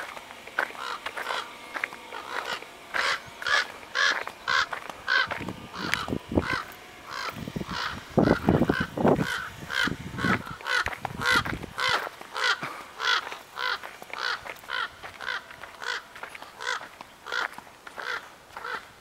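Footsteps crunching on a wood-chip path at an even walking pace, about two steps a second. Between about six and eleven seconds in, deeper rumbling knocks come in as well.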